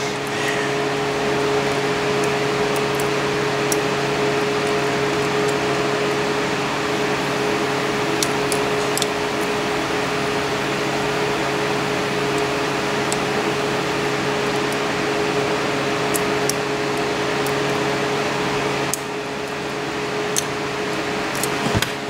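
Steady motor hum, like a fan, with a fixed pitched tone that eases slightly near the end. A few faint light ticks come from the picks working the pins of a 5-pin Chubb padlock.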